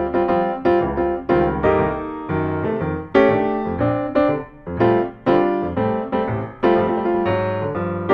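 Piano music: notes and chords struck in quick succession, several a second, each sharp at the start and fading away.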